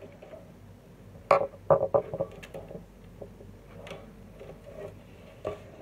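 Plastic and wire parts of a wall fan's front grille knocking and clicking as they are handled and fitted together: a few sharp clicks and knocks, loudest in a quick cluster about a second and a half in, with single knocks later.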